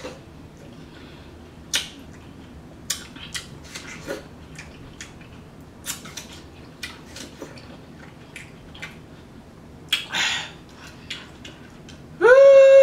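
Close-miked eating of juicy cantaloupe slices: scattered wet smacking and chewing clicks, with a longer slurping burst about ten seconds in. A short held voice sound, steady and then dropping, comes in near the end.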